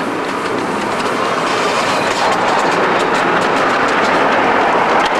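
Small rail vehicle, the 15 inch gauge one-third-size tram, running along its track: a steady rolling rumble of steel wheels on rail with a clickety-clack of clicks that comes more often and slightly louder in the second half.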